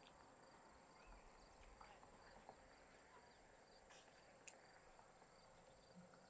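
Faint insect chorus: a steady high buzz with a regular rapid chirping, over near silence. A single faint click about four and a half seconds in.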